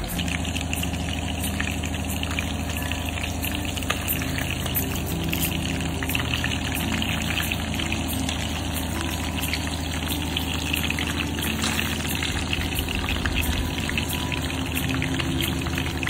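Whole fish shallow-frying in hot oil in a nonstick pan: steady sizzling with many small crackles and spits, over a steady low hum.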